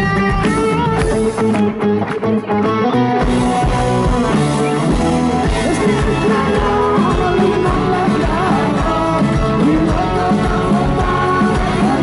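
Live rock band playing loudly through a stage PA: amplified electric guitars with a lead singer's voice over them.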